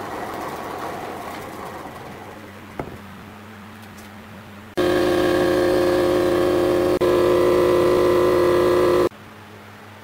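A motor-driven machine running steadily, a hum of several unchanging tones that starts abruptly about five seconds in and stops abruptly about four seconds later, with a brief dip in the middle. Before it there is a fading noisy sound and a single click.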